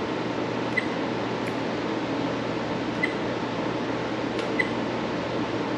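Steady hiss of room ventilation, with a few faint short clicks every second or two from the trail camera's menu buttons being pressed.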